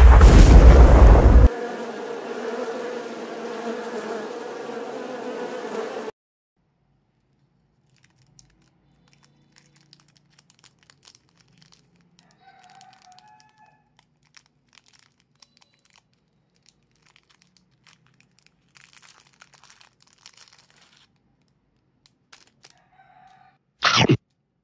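A loud magic-transformation sound effect: a burst that settles into a held shimmering tone for several seconds, then cuts off. Then faint crackling of a clear plastic candy wrapper being peeled off by hand, and a short loud sound effect near the end.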